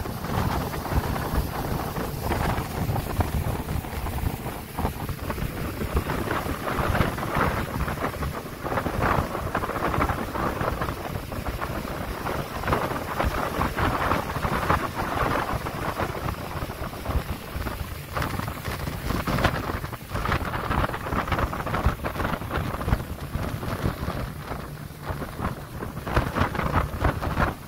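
Motorboat under way on a river: its engines run steadily beneath wind buffeting the microphone and the rush of water past the hull.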